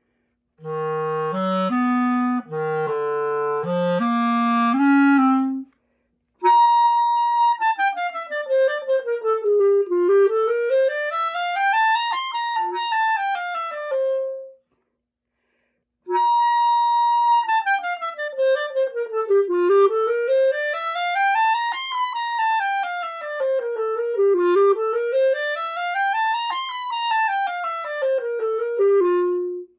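Solo instrumental music: a few separate low notes, then fast scale runs sweeping down and back up, played twice with a short break between.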